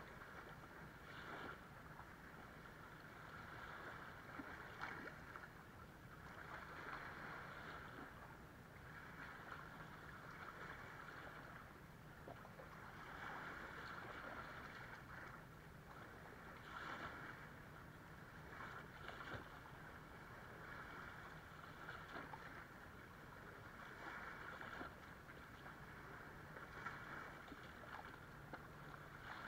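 Small waves lapping and washing up over sand and around rocks at the water's edge, swelling and falling back every few seconds with brief splashes. A faint steady low hum runs underneath.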